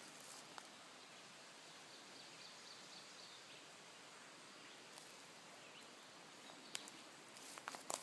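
Near-silent woodland ambience: a faint steady hiss with a few faint bird calls, then several crunching footsteps on a dirt path near the end.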